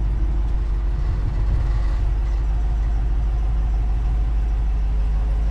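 RAM 5500's 6.7-litre Cummins turbo-diesel inline-six running at a steady low idle as the truck creeps slowly in reverse.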